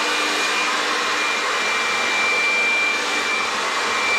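Hair dryer with a comb attachment blowing steadily on high heat: an even rush of air with a faint high whine from the motor.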